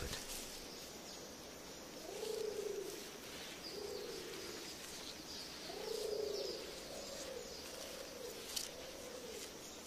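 A pigeon cooing: a slow series of low, arched coos, about six over several seconds, over a faint natural background, with a single click near the end.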